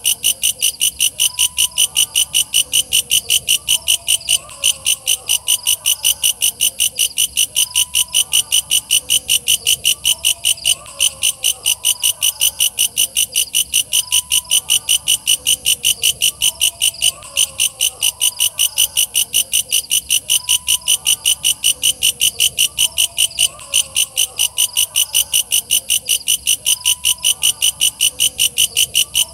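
Walang kecek bush cricket (katydid) calling: a loud, fast, high-pitched chirping of about three to four even pulses a second that keeps going without a break. Fainter, lower wavering calls repeat underneath it.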